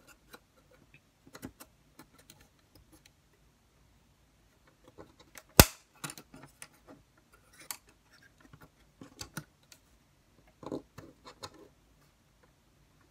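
Wooden popsicle sticks clicking and tapping against each other and on a desk as they are handled and woven together. The taps are scattered, with one sharp, louder click about five and a half seconds in.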